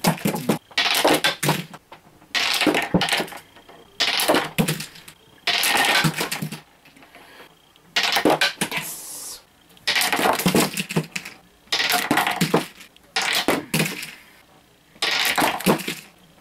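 Small candlepin-style bowling pins clattering on a wooden board as they are struck and knocked over, in a run of short bursts of knocks about every second and a half.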